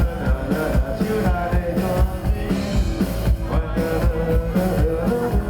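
A small rock band playing a song with drum kit, guitar and bass at a steady beat.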